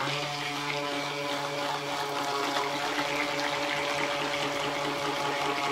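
Handheld stick blender switched on and running steadily, its motor humming with a bright whir as the blade mixes fragrance oil and mica into cold process soap batter in a plastic pitcher.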